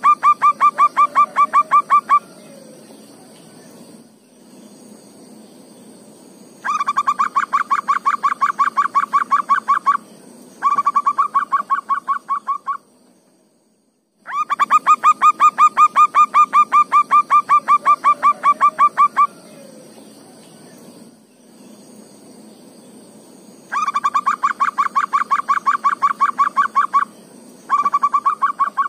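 Zebra dove (perkutut) calling: loud trains of rapid clipped notes, about seven a second, each train lasting two to five seconds with short pauses between, over a faint steady high-pitched hum.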